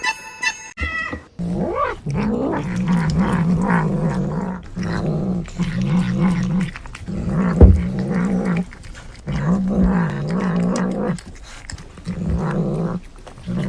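A cat growling in long, low, wavering bouts, about six of them with short breaks between. There is a sharp thump about halfway through.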